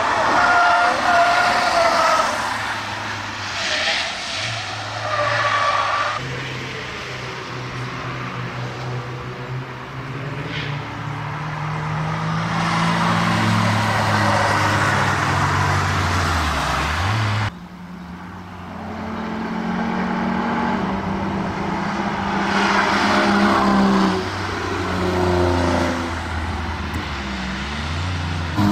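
Several cars driving hard past trackside in turn, their engines rising and falling through the gears as each one goes by. Tyres squeal in the first few seconds as a van corners. The sound cuts off suddenly about two-thirds of the way through, then the next car comes in.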